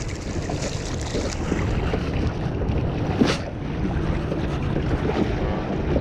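Wind buffeting the microphone and river water washing against a boat's hull, with one brief sharp noise about three seconds in.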